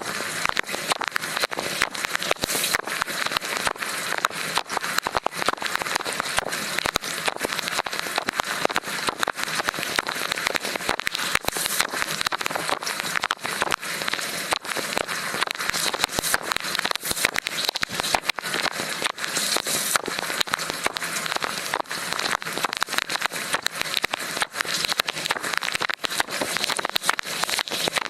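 Inside a running LG dishwasher during the wash: water from the spray arms spatters hard and continuously against the camera and the dishes, a dense crackling hiss of countless droplet hits. A thin, steady high tone runs underneath.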